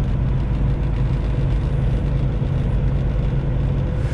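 Semi truck's diesel engine running steadily with road noise, heard from inside the cab while driving.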